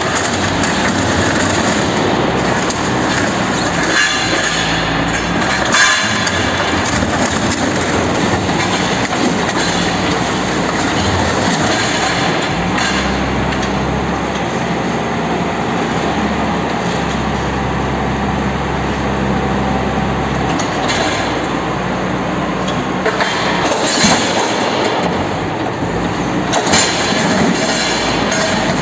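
Heavy machinery destroying a refrigerator: a loud, continuous rumble and rattle, with a few sharp clanks about 4, 6, 24 and 27 seconds in.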